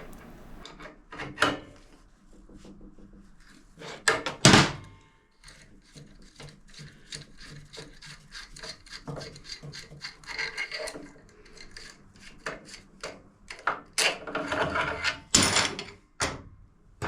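Hand tools on a motorcycle's bolted steel parts: a spanner clinking and scraping as nuts are undone and a footboard support rod is worked loose, with quick ticking in the middle and several louder metal knocks, the loudest about four and a half seconds and fifteen seconds in.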